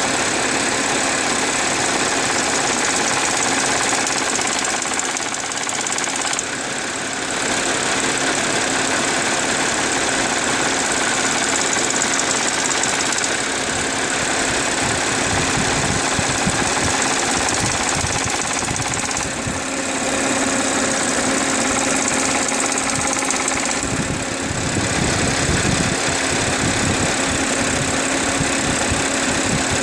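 Audi A6 C6 3.0 TFSI supercharged V6 running on a cold start, carrying an extraneous noise that swells and fades in waves, coming from the left rear side. The noise appears only while the engine is cold, and its cause is not yet known.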